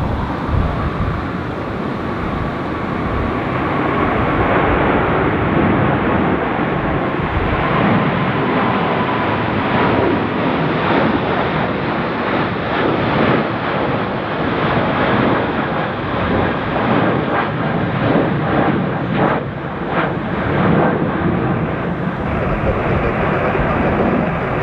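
Boeing 777 twin-engine jetliner climbing out after take-off, its engines running with a steady heavy roar as it passes overhead; a faint whine in the roar slowly falls in pitch during the first half as the jet goes by.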